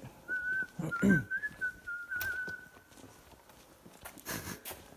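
A person whistling one long, slightly wavering note that stops about three and a half seconds in. A brief vocal sound cuts in about a second in, and a short rustle comes near the end.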